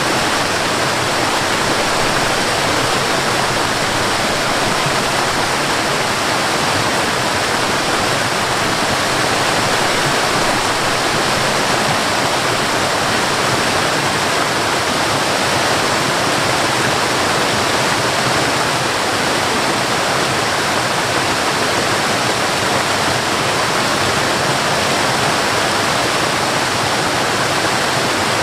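Waterfall on a forest river: a steady, loud rush of falling water, unchanging throughout.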